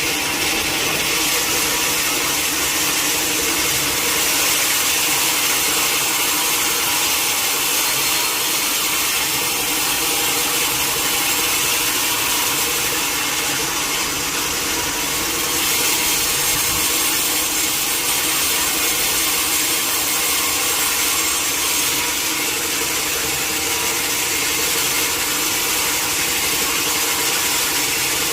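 Sawmill saw cutting through a large teak log, a steady loud noise that does not let up.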